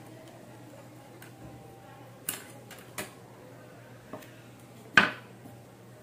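Four light clicks and knocks as a small plastic bottle and card cut-outs are handled on a tabletop, the sharpest about five seconds in.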